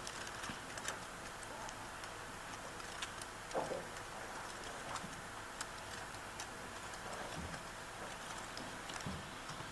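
Faint hall room tone with scattered, irregular light clicks and a few soft taps from a laptop's keys and touchpad being worked; no music is playing.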